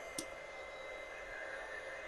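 Embossing heat gun running faintly with a steady hiss and thin whine, melting embossing powder on a stamped card. A single light click just after the start.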